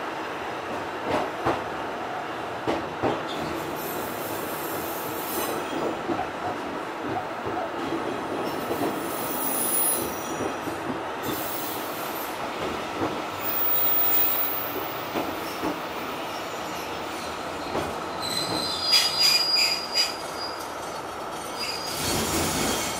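Fukui Railway Type 200 electric railcar running, heard from inside the car: a steady rumble with scattered clicks over the rail joints. Thin, high-pitched wheel squeals rise several times, the loudest about three-quarters of the way through.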